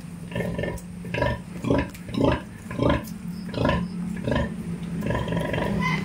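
Nursing sow grunting in a steady series of short grunts, about one every half second to a second, while her piglets suckle; a steady low hum runs underneath.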